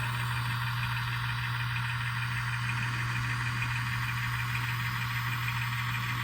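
Diesel engine sound from a Digitrax sound decoder in an N-scale Kato PA1 locomotive, played through its newly fitted 16 mm speaker: a steady engine drone.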